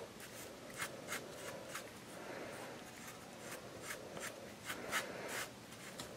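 Hands handling small pieces of polymer clay on a smooth work surface: faint scattered clicks and taps with soft rubbing.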